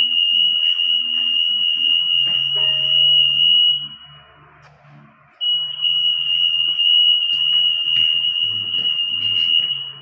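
SET AM4400 58 kHz acousto-magnetic anti-theft pedestal sounding its alarm, a loud steady high-pitched tone, as an AM security tag is carried through the gate: the tag is detected and the system is working. The tone lasts about four seconds, stops for about a second and a half, then sounds again.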